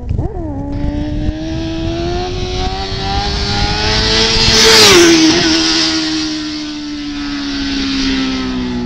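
Sport motorcycle engine held at steady revs during a wheelie, with a short rev blip at the start. It grows louder as the bike comes on, passes close by about five seconds in with a sudden drop in pitch, then keeps a slowly falling pitch as it rides away.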